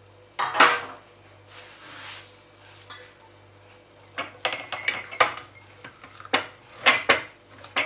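Chopped sorrel leaves rustling as hands grab them from a stainless-steel bowl and press them into small glass jars, with a loud scrape about half a second in. From about four seconds on, a run of sharp clinks and knocks from the glass jars and the steel bowl, a few of them ringing briefly.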